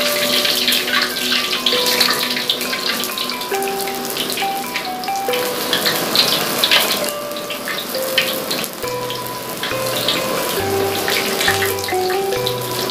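Hot cooking oil sizzling and crackling in a wok as flour-battered eggplant slices fry, with more slices going in. A simple background melody plays over the sizzle.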